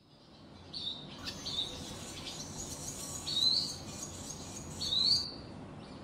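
Swallow chirping: short, high chirps, several rising in pitch, coming a few at a time over a steady background hiss, the loudest about three and a half and five seconds in.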